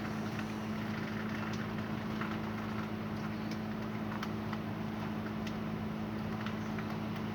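A steady mechanical hum with a few faint scattered ticks.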